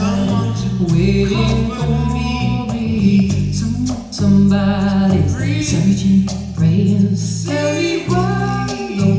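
A pop song with a female lead vocal over bass and band, played back loud over JBL EON ONE portable column PA speakers in a large hall.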